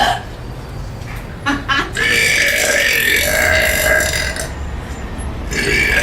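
A long drawn-out belch lasting about two and a half seconds, starting about two seconds in, with another belch starting near the end.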